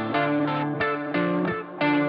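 Background music: a guitar picking single notes one after another in a steady pattern.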